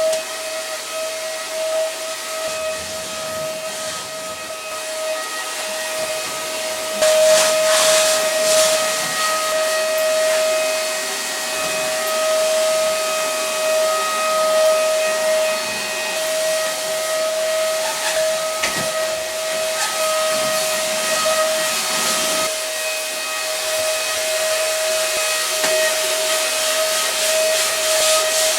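Vacuum cleaner running steadily: a constant high motor whine over rushing air hiss, the hiss getting louder about seven seconds in.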